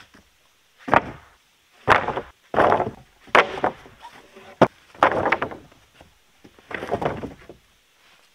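Long sawn wooden boards being dropped and stacked on a wooden plank deck: about seven loud knocks and clatters of wood on wood, spread over several seconds.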